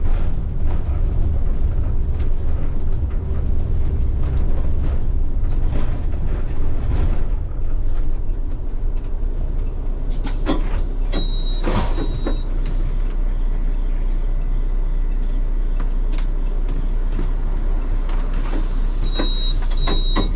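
Bus engine running under a low, steady rumble from the driver's cab, heavier through the first several seconds. Twice, about halfway through and again near the end, there is a short hiss of air with a brief high beep.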